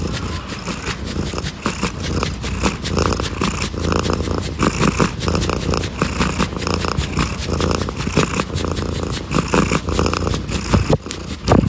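A domestic cat purring steadily, close and loud.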